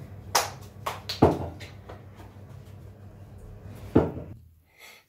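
Three sharp knocks and a few lighter taps close to the recording phone, over a low steady hum that cuts out near the end.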